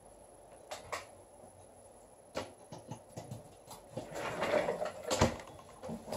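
Handling noises on a tabletop: a few scattered sharp clicks, then rustling from about four seconds in, with a sharp knock just after five seconds.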